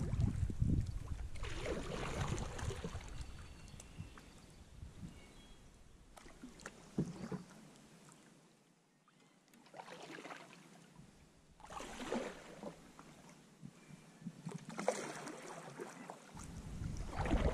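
Kayak moving along a shallow creek edge: swishes of water against the hull come and go every few seconds, with a few light clicks. Wind rumbles on the microphone for the first couple of seconds.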